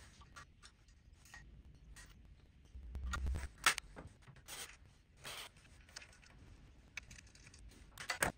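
Hands handling parts during assembly of a Snapmaker Artisan machine: scattered light clicks, scrapes and rustles, with a dull bump about three seconds in followed by a sharp click, and a quick cluster of louder clicks near the end.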